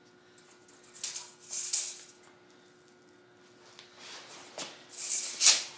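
A few short scraping, rustling bursts from handling a tape measure and steel pipe on a concrete floor, the loudest near the end.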